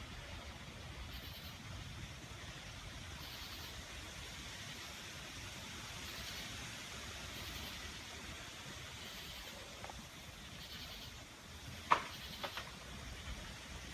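Night-time storm ambience: a steady low rumble and hiss, with a high-pitched chirping call repeating about once a second. A sharp click comes near the end, followed by a couple of fainter ones.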